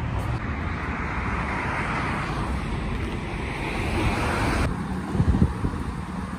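Wind buffeting the phone microphone over city street traffic noise, with a swelling hiss that cuts off suddenly about two-thirds of the way in.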